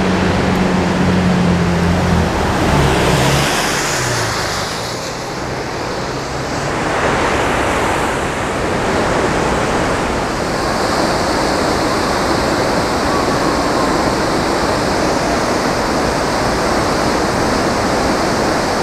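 Looking Glass Falls waterfall, a loud, steady rush of falling water. During the first few seconds a low hum sounds underneath; it drops in pitch about three seconds in and then fades.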